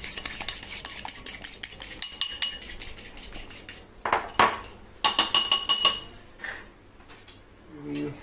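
A metal fork whisking egg-and-flour batter in a glass bowl: rapid clinking of the fork against the glass, louder for a couple of seconds in the middle, then easing off near the end.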